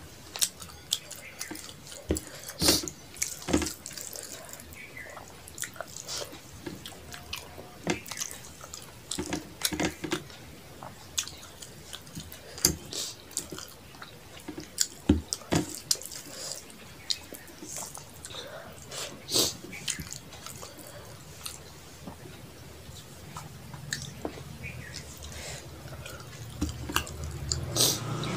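Close-miked sounds of eating rice and fish curry by hand: irregular wet clicks, squelches and lip smacks from fingers mixing the food and from chewing. A low rumble builds near the end.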